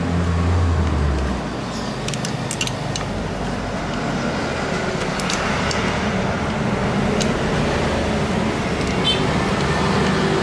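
Steady mechanical background noise like a fan or nearby traffic. A low engine-like hum stops about a second and a half in. A few light clicks follow, typical of small plastic parts and connectors being handled.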